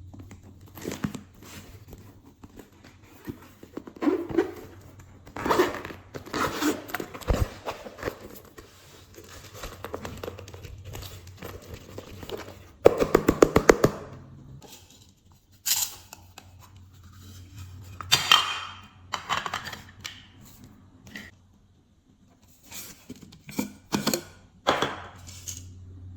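Glossy slime being stretched, folded and pressed by hand, giving sticky tearing and crackling sounds in bouts. About halfway through comes a fast run of small pops lasting about a second, typical of air bubbles bursting in the slime.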